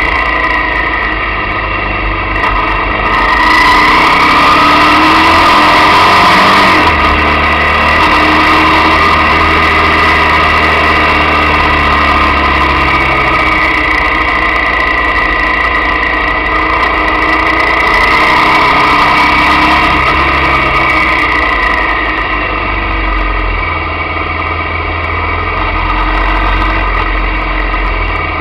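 Motorcycle engine running under way, its pitch rising and falling as the rider accelerates and eases off through the bends, loudest a few seconds in along with a rush of high noise.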